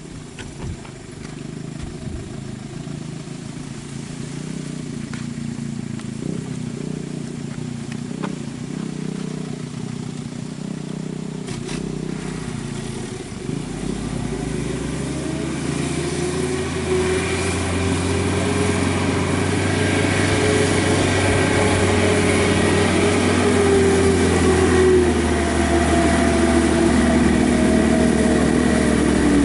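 Colt Diesel truck's 100 PS diesel engine labouring on a hill climb, a low rumble at first that grows steadily louder from about halfway through, its pitch slowly rising and then falling.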